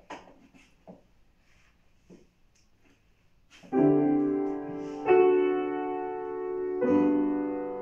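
Grand piano playing the introduction to a Swedish art song: about three and a half seconds of near quiet with a few faint small rustles and knocks, then three sustained chords struck about a second and a half apart, each left ringing.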